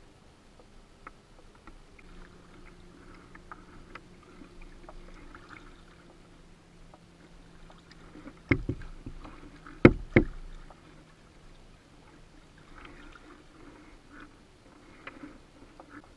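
Kayak paddling on choppy water: light splashing and dripping against the plastic hull, with three sharp knocks a little past halfway.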